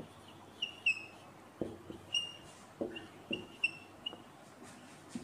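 Dry-erase marker squeaking on a whiteboard while words are written: a run of short, high squeaks, about nine of them at uneven spacing, with a few soft knocks of the marker against the board.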